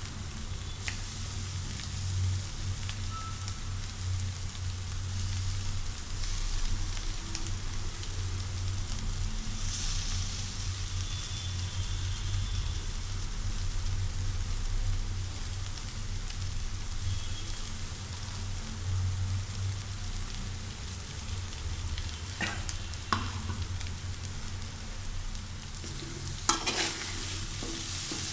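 Maggi noodles and egg sizzling in a pan as they are stirred, with a steady low hum under the sizzle. A few sharp clatters come near the end.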